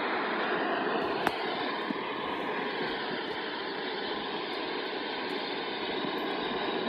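AM radio static hissing steadily, with a faint wavering whine underneath: electrical interference from a Whirlpool Cabrio washing machine's spin motor picked up on the mediumwave band. One sharp click about a second in.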